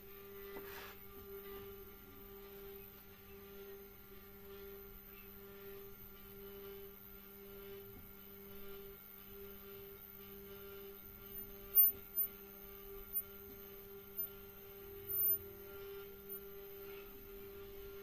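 3D printer Z-axis stepper motors carrying a 4 kg load, giving a steady electrical hum-like whine that shifts slightly in level and pitch a couple of times. A few brief sharp ticks come in the second half.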